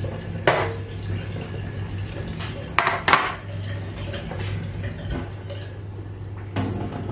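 A tray being set down and handled on a stainless-steel counter: a few sharp clatters, with a short ring after the first, two knocks close together about three seconds in, and another near the end.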